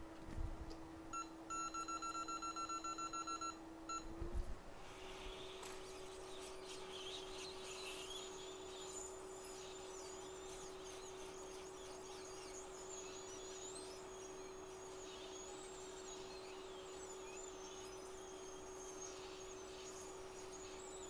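Hot air rework station running with a steady hum while it heats a shield on an iPhone 6S logic board to lift it off. About a second in there is a rapid string of electronic beeps lasting two seconds or so. Then the hum steps slightly higher and a faint hiss of the hot air stream carries on.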